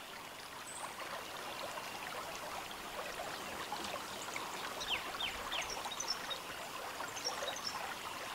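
Faint steady outdoor background hiss with scattered small chirps and ticks, a few quick falling chirps about five seconds in.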